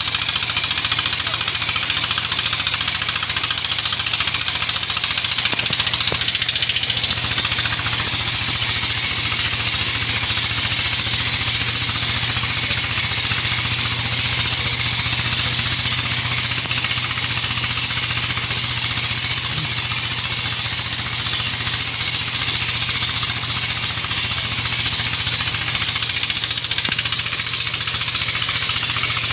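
Single-cylinder 'dompeng' diesel engine running steadily with a rapid, even beat, driving the suction pump that draws up sand.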